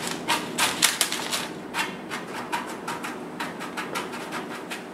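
Oiled pumpkin seeds being pushed and spread by hand over parchment paper on a pizza pan: a quick, irregular run of rustles and little clicks as the seeds slide and the paper crinkles.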